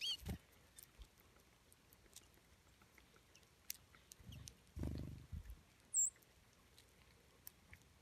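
American goldfinches feeding on seed, with soft scattered pecking and seed-cracking clicks. Wings flutter as birds fly in and out around the middle, a short bird chirp sounds at the start, and a sharp, very high chirp comes about six seconds in.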